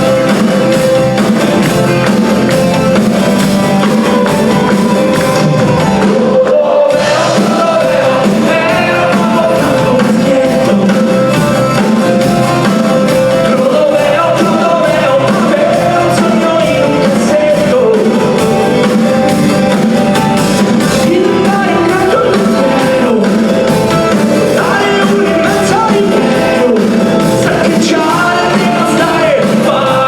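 A rock band playing live, with a singer's voice over the band.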